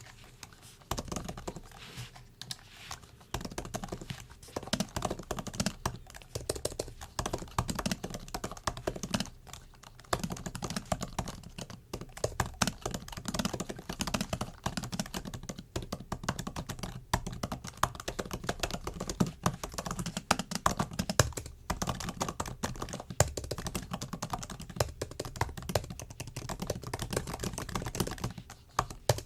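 Typing on a MacBook keyboard: rapid, uneven runs of soft key clicks with brief pauses between bursts.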